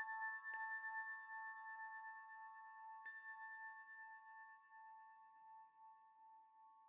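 Singing bowl ringing out and slowly fading, its tones pulsing gently, with two light metallic strikes about half a second and three seconds in.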